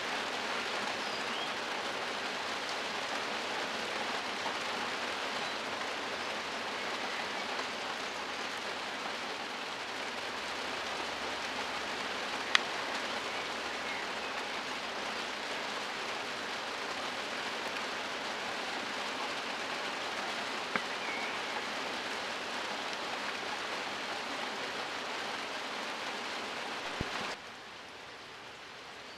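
Steady rain falling, an even hiss, with two sharp clicks, one a little before the middle and one about two-thirds through; the rain sound drops suddenly to a quieter level near the end.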